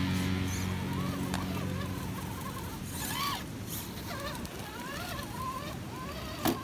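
A small electric RC crawler motor and drivetrain whining, its pitch rising and falling with the throttle as the truck picks its way over rocks. A sharp knock comes near the end, and the last of a guitar music track fades out at the start.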